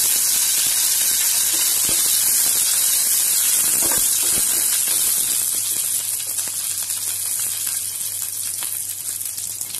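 Curry leaves, slit green chillies, mustard and cumin seeds sizzling in hot oil in a steel pan: a tadka (tempering) frying with a loud steady hiss that eases a little after about six seconds. A spoon stirs the pan about four seconds in.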